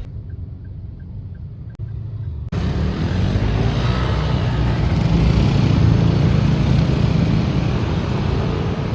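Motor vehicle noise from a car on the road, engine and tyre rumble. About two and a half seconds in it cuts abruptly to louder, fuller road and engine noise that swells toward the middle and then eases slightly.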